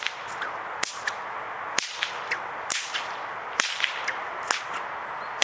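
Bullwhip being cracked overhead in a steady rhythm, a sharp crack roughly once a second, with fainter snaps between some of them.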